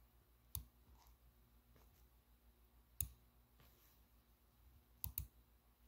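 Computer mouse clicking in a quiet room: a sharp single click about half a second in, another about three seconds in, then a quick double click near the end.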